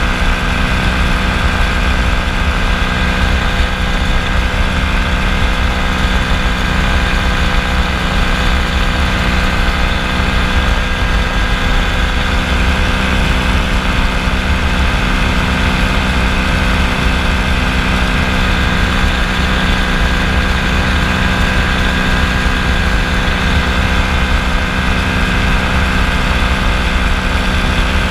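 Kolb FireFly ultralight's engine and pusher propeller running steadily in flight, holding one constant pitch throughout.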